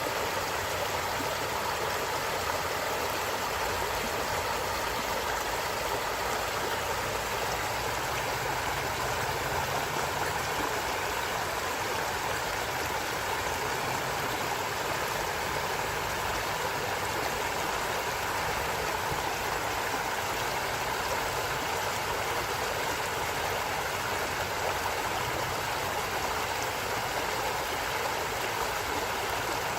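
Steady flowing water of a stream or brook, rushing and gurgling evenly without a break.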